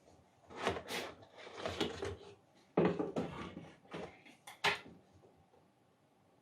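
A box being opened and its packaging handled by hand: a run of irregular knocks, scrapes and rustles lasting about five seconds.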